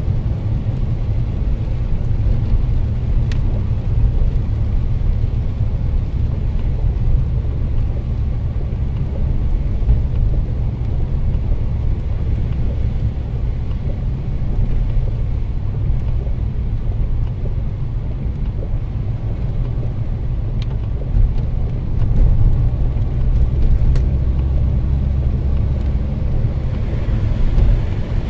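Steady low rumble of a car's engine and tyres on a wet road, heard from inside the cabin while driving in rain, with a few faint ticks.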